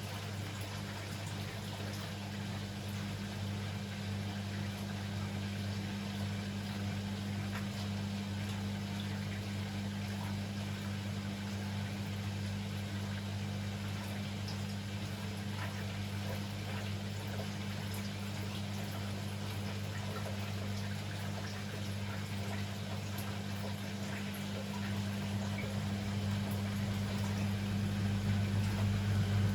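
Beko WML 71433 NP washing machine mid-cycle: a steady hum with water moving inside, growing somewhat louder near the end.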